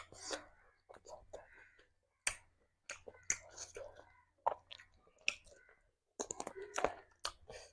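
A person chewing and smacking on a mouthful of rice and curry, with irregular wet clicks and smacks.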